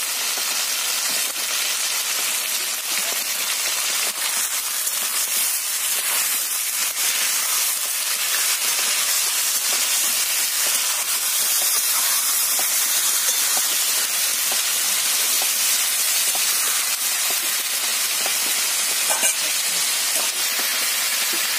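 Chicken pieces and halved tomatoes sizzling in hot oil in a kadai, a steady frying hiss, with a few light knocks and scrapes as a spatula stirs the pan.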